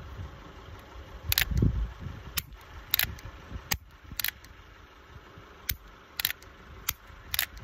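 Revolver clicking as the hammer is cocked and snaps down on dud rounds, about nine sharp metallic clicks spaced roughly half a second to a second apart.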